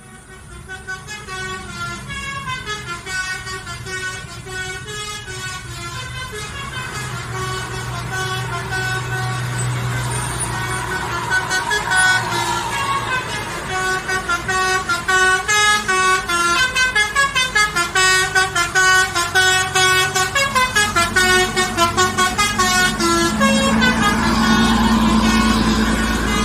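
Basuri telolet musical bus horn playing quick melodic runs of short stepped notes, growing louder. A low rumble rises underneath near the end.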